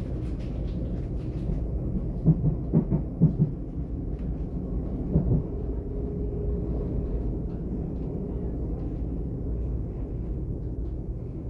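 Alstom/Bombardier Class 422 electric multiple unit running with a steady low rumble. A cluster of louder knocks comes about two to three and a half seconds in, and one more near five seconds.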